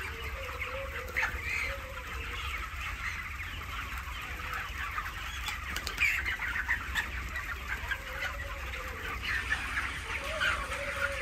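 A large flock of broiler chickens clucking and chattering all at once in a dense, continuous din, with individual calls popping out now and then. A steady low hum runs underneath.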